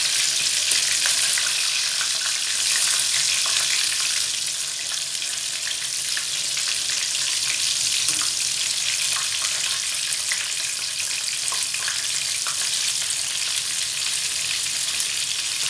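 Breaded chicken pieces frying in hot oil in a pan: a steady sizzle with scattered crackles.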